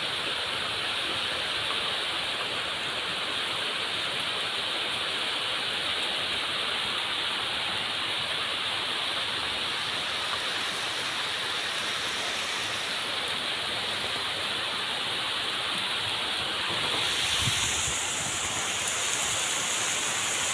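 Steady rain falling, a dense even hiss that grows a little louder about seventeen seconds in.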